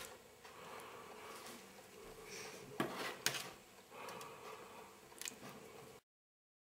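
Metal spoon and tongs scraping and clinking against a stainless steel pot and pan as baked eggplant is moved into tomato sauce: a few sharp clinks over a faint background, then the sound cuts off to silence near the end.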